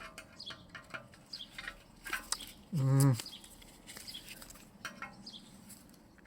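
Small metal clicks and scrapes of pliers working at a twist rivet on a compressor plate, with a short low grunt of effort from the man about three seconds in.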